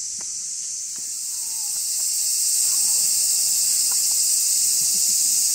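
A dense, high-pitched insect chorus, a continuous hissing drone that swells louder about two seconds in and then holds steady.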